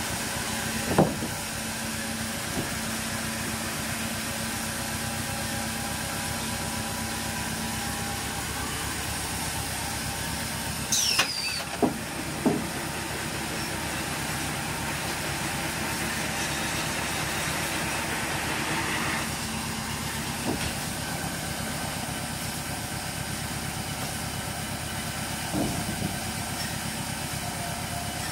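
An engine runs steadily at idle. Sharp knocks of heavy logs against the steel log deck come through it: one about a second in, three close together around the middle, and two more later.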